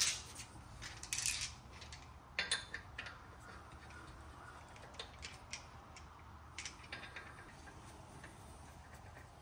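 Metal lug nuts clinking and being spun onto the wheel studs by hand. There are a few sharp clicks in the first three seconds, then lighter scattered ticks.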